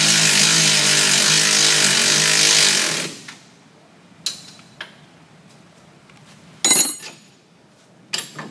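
Power tool running in one long burst for about three seconds, driving the RZR's front A-arm bolt tight, then stopping. A few light tool clicks follow, with a sharper metal clank about seven seconds in and another near the end.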